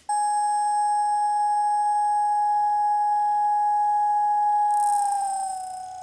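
Aluminum tuning fork ringing a steady, pure high tone with faint overtones. About five seconds in, its vibrating tines touch a cup of water and throw off a brief spray hiss, and the tone dips slightly in pitch and gets quieter as the water damps the tines.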